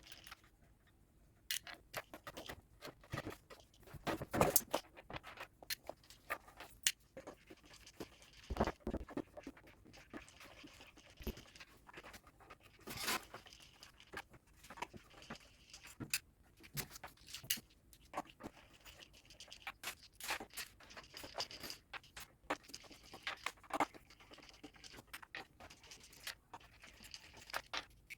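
Irregular small clicks, taps and knocks with some rustling, the sound of small objects being handled; the loudest knocks come about four, nine and thirteen seconds in.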